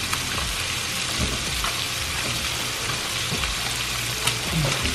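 Flounder fillets frying in butter in a nonstick pan, with a steady sizzle.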